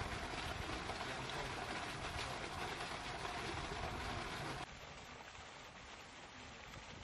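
Small pond fountain jet splashing steadily into the water. It cuts off abruptly about four and a half seconds in, leaving a quieter, duller outdoor background.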